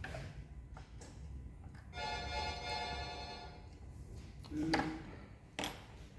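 A held, pitched tone lasting just over a second, about two seconds in, followed by a couple of sharp clicks or knocks of hand-tool work on the engine.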